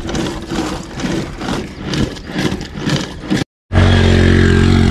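A busy, irregular jumble of sounds, then a sudden cut about three and a half seconds in, after which an engine runs steadily at idle.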